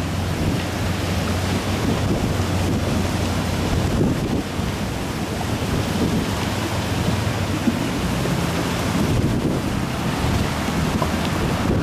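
Steady rush of a fast-flowing river in flood, carrying ice and debris, mixed with wind buffeting the microphone.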